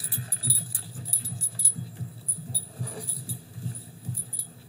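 Small metal pieces jingling in short rattles over soft low thumps about three a second.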